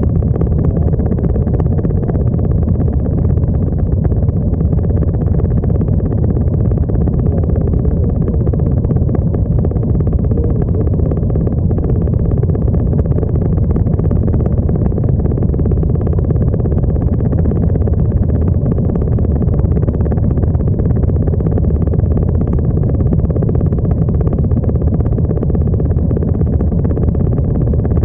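Several motorcycle engines idling together in a steady low drone, the bikes standing still in a stopped column.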